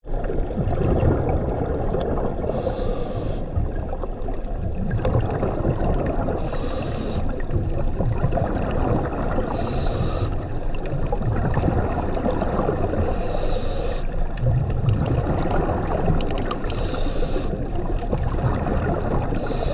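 Scuba diver breathing through a regulator underwater: a short hiss about every three and a half seconds, over a steady low rumble of water noise.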